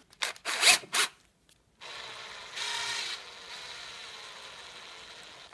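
A few sharp knocks of wood being handled, then from about two seconds in a cordless drill-driver runs steadily, driving a screw through the wooden broom head into the handle.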